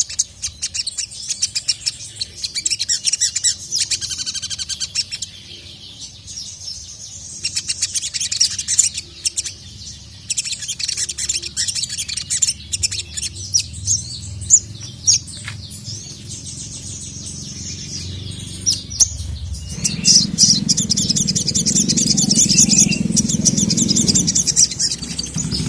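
Sogon (sogok ontong sunbird) singing in repeated bursts of rapid, high-pitched twittering trills; it is a calling song that draws male birds. A low rumble joins under the song over the last few seconds.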